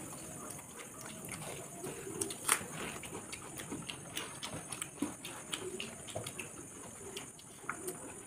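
Two people eating rice by hand from steel plates: soft mixing and chewing, with many small scattered clicks of fingers and food on the plates. A dove coos faintly now and then in the background.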